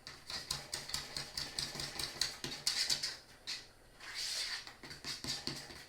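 Fork beating cake batter in a bowl: quick rhythmic clicks and scrapes, several a second.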